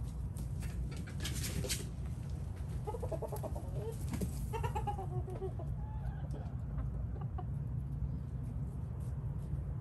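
Chickens clucking: a short run of calls about three seconds in and a longer, falling call about a second later, over a steady low rumble.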